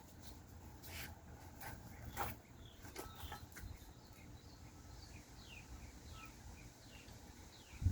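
Quiet outdoor background with a bird calling a quick series of short, falling chirps, plus a few faint sharp clicks in the first few seconds.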